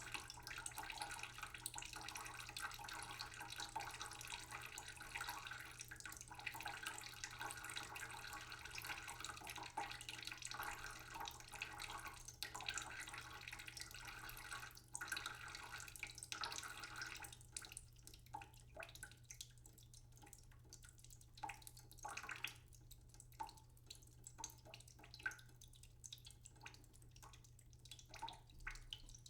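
Tap water running slowly into a cooking pot in a sink, a steady trickling hiss. About 17 seconds in, the flow thins to scattered drips and small splashes into the water in the pot.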